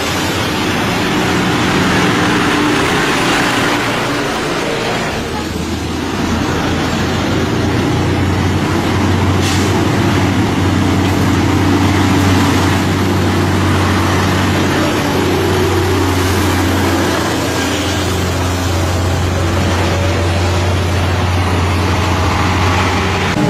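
Heavy lorry diesel engines running close by, a loaded tipper truck on a steep grade among them. A deep, steady engine drone comes in about five seconds in and holds, over continuous traffic noise.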